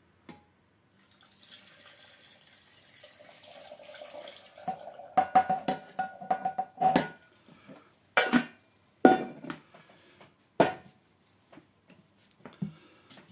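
Brine being poured into a glass jar packed with herring, a soft splashing pour for the first few seconds. It is followed by about six sharp clinks and knocks of a pot or utensil against the glass jar.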